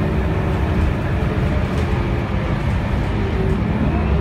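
Scania DC9 9.3-litre five-cylinder diesel engine of a Scania K280UB bus running steadily, heard from inside the cabin as a constant low drone mixed with drivetrain and road noise.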